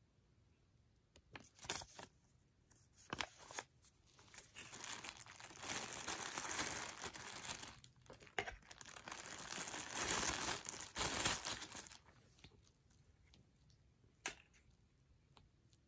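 Thin clear plastic bag crinkling and rustling as it is handled and pulled open to get the watch strap out, for about seven seconds in the middle. A few light knocks come before it and one near the end.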